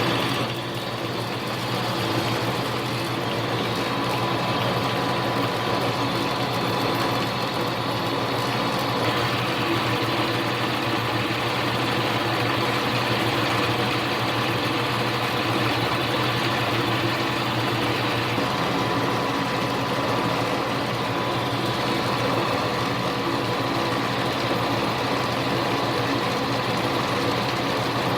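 Small hobby lathe running steadily at constant speed while a tiny drill bit is fed into a miniature bushing, with an even motor and gear hum.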